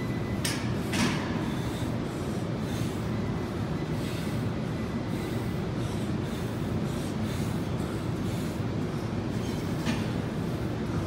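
Steady low rumble of gym room noise, with a couple of sharp clicks about half a second and a second in, and another near the end.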